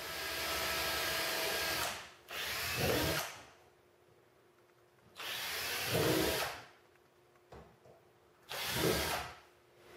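Cordless drill boring holes through the rim of a plastic 55-gallon drum, in several short runs of one to two seconds with pauses between them.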